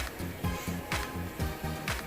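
Background music with a steady beat: a repeating bass line with a sharp hit about once a second.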